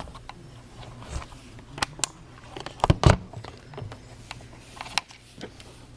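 Scattered light clicks and knocks of a Contour ROAM action camera being handled and turned over, with a louder knock about three seconds in.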